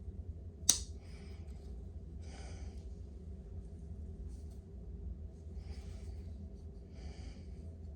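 A pocket knife being handled: one sharp click about a second in, then a few soft breaths over a low steady hum.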